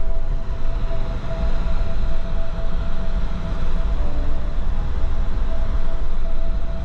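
Cabin noise of a four-wheel-drive Jeep on the move: a steady low rumble of engine and tyres, with a faint humming tone above it.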